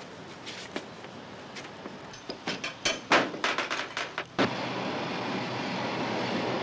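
A steady rushing noise with a run of sharp clatters and knocks, then, about two-thirds of the way in, a louder, even rumble of a metro train carriage in motion.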